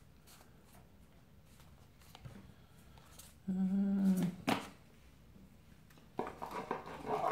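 A man hums a short, steady 'hmm' about halfway through while he shuffles trading cards through his hands with faint soft clicks. A single sharp click follows the hum, and a short noise rises near the end.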